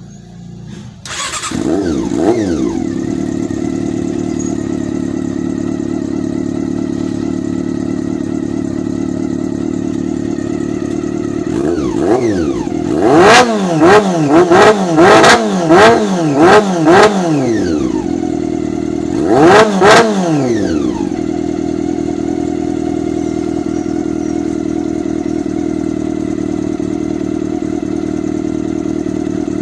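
Honda Super Four inline-four motorcycle engine breathing through a newly fitted M4 aftermarket exhaust: it starts about a second in and settles into a steady idle. Partway through it is blipped through about seven quick revs in a row, then revved once more, and returns to idle.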